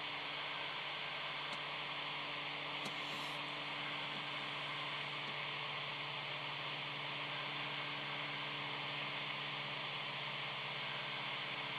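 Steady FM radio hiss with a low hum from a Motorola M-120 VHF mobile radio's speaker, the repeater carrier held open with no voice on it, and two faint clicks in the first few seconds. Net control takes the noise for a problem on the linked repeater system coming from the west.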